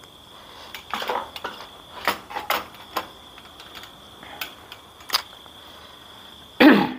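Plastic clicks and cable rustles from a small CCTV camera and its USB power cord being handled, fitted and plugged in, with one louder rustle near the end. A steady high trill of crickets runs underneath.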